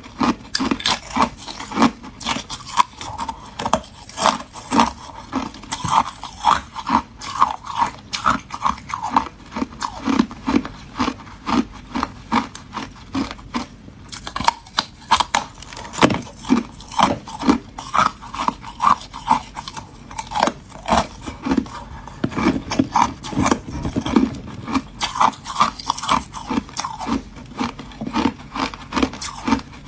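Close-up crunching and chewing of hard ice in a person's mouth, a quick uneven run of short crunches, roughly two to three a second.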